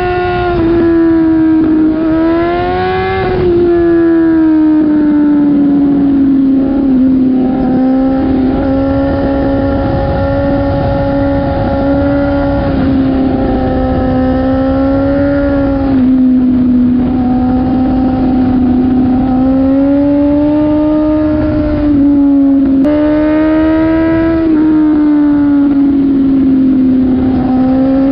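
BMW S1000RR's inline-four engine running at high revs, its pitch slowly rising and falling with the throttle and dipping briefly a few times. A steady noise sits underneath.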